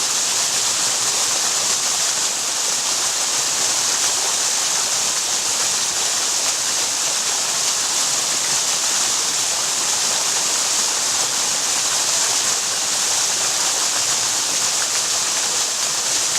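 Waterfall: a steady, even rush of falling water, strongest in the hiss of splashing spray.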